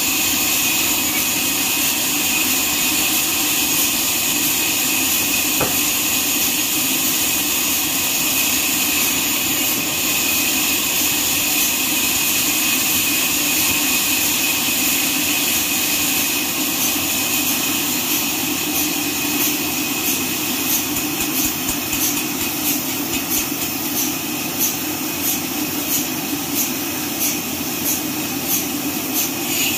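Horizontal band sawmill running and cutting lengthwise through a neem log: a steady, loud machine noise with a high ring from the band blade in the wood. Past the middle, a regular high ticking comes in, about three ticks every two seconds.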